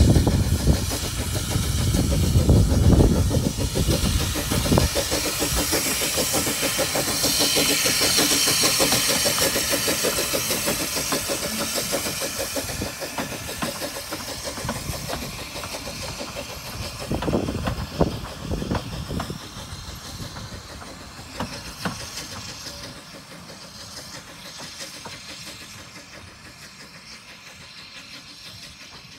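Narrow-gauge steam locomotive hauling a train of coaches past: the chuffing exhaust, steam hiss and rumble of wheels on rails are loud at first and fade steadily as the train draws away, with a few sharper knocks from the wheels midway.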